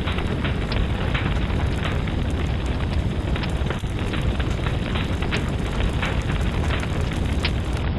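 Fireplace fire crackling: frequent irregular sharp pops and snaps over a steady low rumble of the flames.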